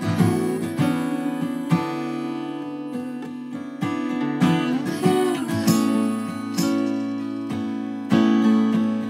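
Two acoustic guitars playing an instrumental passage, chords picked and strummed and left to ring between strikes.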